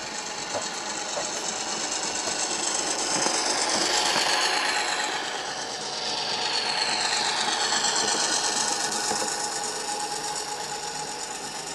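Model railcar running on the track: a steady mechanical whirr and rattle of its motor and wheels, swelling twice as it passes, with a faint whine that falls in pitch.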